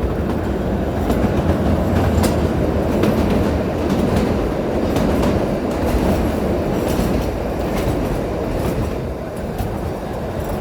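Kalka–Shimla narrow-gauge toy train running, a steady rumble with the clickety-clack of its wheels over the rail joints.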